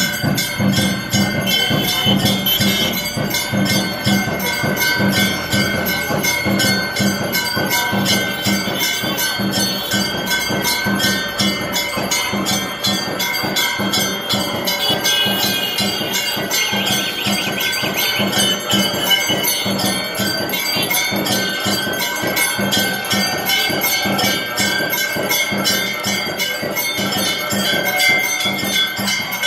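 Brass temple bell rung by hand in a fast, steady rhythm for the aarti, its ringing sustained without a break, over a pulsing low beat.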